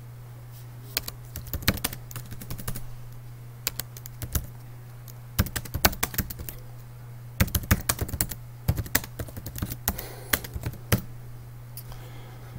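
Typing on a computer keyboard: bursts of key clicks with short pauses between words, over a steady low hum.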